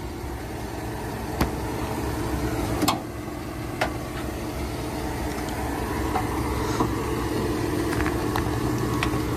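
A vehicle engine idling steadily, most likely the SUV hooked up by jumper cables to jump-start the dead truck. A few light clicks and knocks sound over it.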